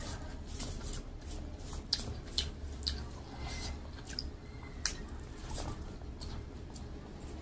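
Fingers mixing cooked rice with mashed beetroot bharta by hand: soft wet squishing with sticky little clicks, a few sharper ones around two to three seconds in and near five seconds.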